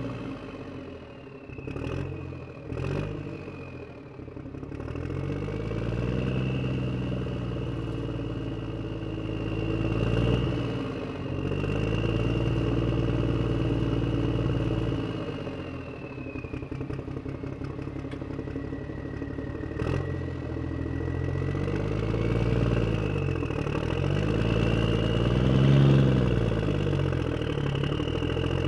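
Motorcycle engine running and being revved up and down again and again, its pitch rising and falling. Two sharp clicks come about two and three seconds in, and it drops to a pulsing idle in the middle before revving up again near the end.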